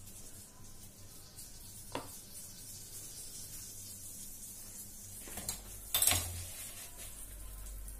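Butter sizzling faintly in a heated nonstick pan on a gas stove, a steady high hiss. A click comes about two seconds in, and a louder clatter of kitchenware comes about six seconds in.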